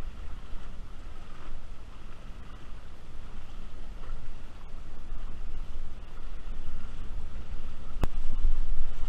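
Wind buffeting the microphone of a camera held up close to an inflatable wingfoil wing: a low, uneven rumble that grows louder near the end, with one sharp click shortly before it ends.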